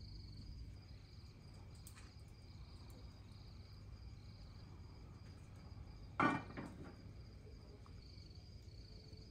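Crickets chirping steadily in a constant pulsing trill, with one short voice sound about six seconds in.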